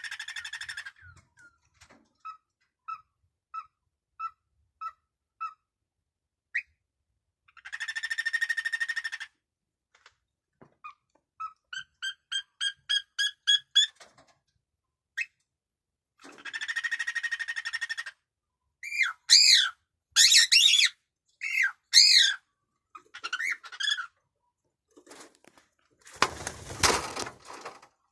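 Cockatiel singing: harsh buzzy chatter alternating with runs of short whistled notes, one run climbing in pitch, then a few loud warbling whistles. A short burst of noise near the end.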